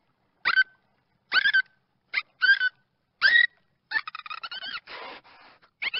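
Dolphin calls: five short chirping whistles, each sweeping upward in pitch, then from about four seconds in a rapid buzzing train of clicks.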